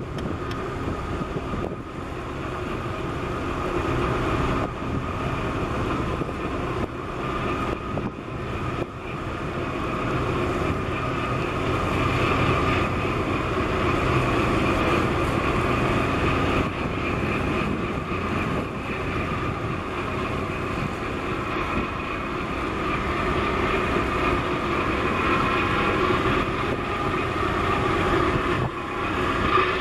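Steady engine drone of a boat under way, with wind and water wash mixed in.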